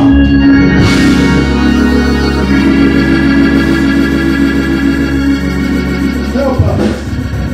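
Organ playing long held chords over a steady bass, changing chord twice. Near the end a man's chanted preaching voice comes back in over it.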